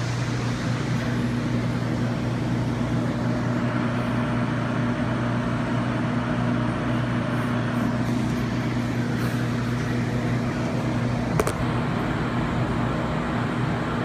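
Steady low hum of an idling car, heard from inside the cabin, with one brief click about eleven seconds in.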